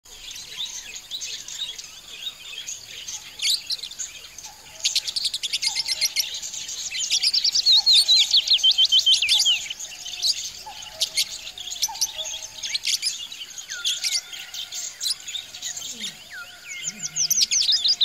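Budgerigars chirping and chattering in fast runs of short high chirps and warbles, busiest from about five to ten seconds in and picking up again near the end.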